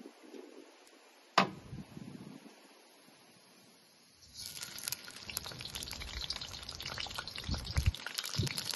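A single sharp knock about a second and a half in, as the glass oil bottle is set down. From about four seconds in, red bell pepper strips go into hot oil in a wok and sizzle and crackle, getting louder as more are added.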